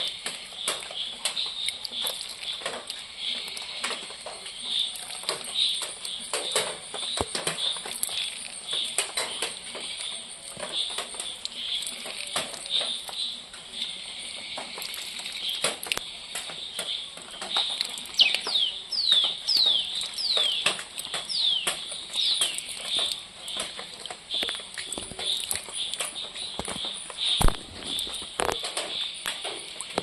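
Outdoor wildlife ambience: a steady high chirring with repeated short chirps, and a quick run of falling whistled bird calls a little past the middle, over frequent small ticks and drips.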